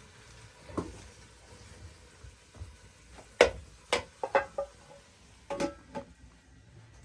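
Cooking utensils knocking and clinking against pots and dishes: a handful of separate sharp knocks with quiet gaps, the loudest about three and a half seconds in, followed by a quick cluster of clinks.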